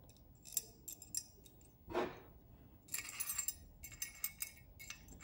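Sharp little metal clicks and clinks as the parts of a metal camera L-bracket are handled and fitted together, with a denser rattle of clicks about three seconds in. A short, louder rustle comes about two seconds in.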